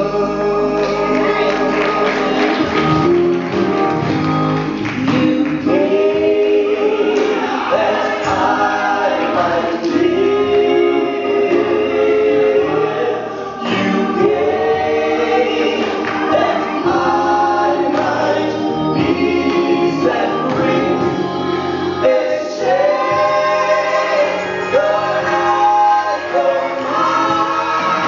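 Gospel mass choir singing, led by soloists on microphones, with organ accompaniment.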